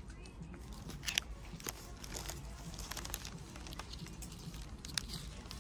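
Clothes being handled on a store rack: faint rustling of fabric and paper price tags, with scattered clicks of hangers, the sharpest about a second in and near the end, over a low steady hum.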